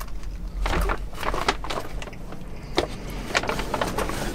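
Paper shopping bag rustling and crinkling in irregular sharp crackles as it is handled and a purchase is taken out of it, over a steady low rumble.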